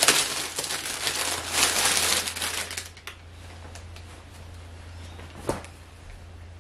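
Clear plastic packaging bag crinkling loudly as it is handled and a garment is pulled out of it, dying down after about three seconds. A single short click comes later, over a steady low hum.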